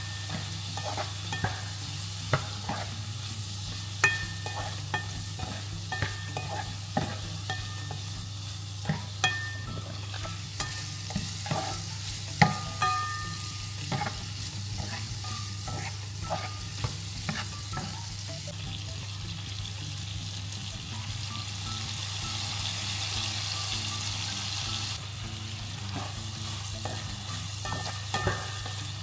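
Shrimp sizzling as they fry in garlic butter in a pan, with a utensil clicking and scraping against the pan as they are stirred. The sizzle grows louder for several seconds past the middle, over a steady low hum.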